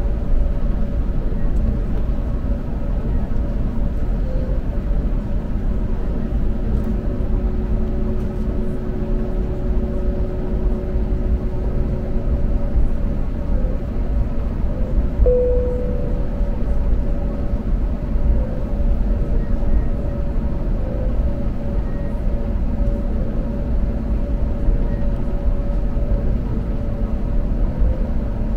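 Airliner cabin of an Airbus A321neo with its engines idling on the ground: a steady low rumble with faint steady hums, and a short tone sounds about halfway through.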